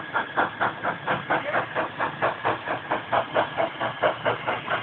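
Steam locomotive's exhaust chuffing in a fast, even rhythm of about five or six beats a second as it approaches working hard.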